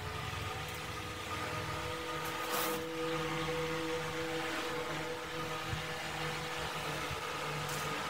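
A steady motor-like hum of several held tones, with a couple of brief light knocks.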